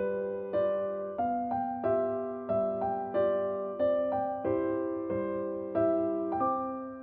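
Background piano music: a calm run of chords struck at an even pace, about three every two seconds, each ringing and fading before the next.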